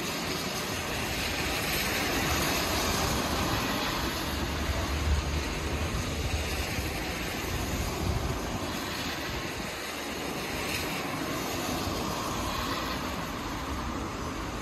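Steady rushing noise of traffic on a wet road, with a heavier low rumble in the middle as a vehicle passes.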